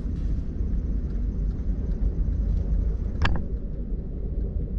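Small DC motor spinning a magnet rotor inside a salvaged sump-pump stator coil, running with a steady low rumble; the shaft runs without a bearing, which makes it noisy. A short sharp tick with a brief ring about three seconds in.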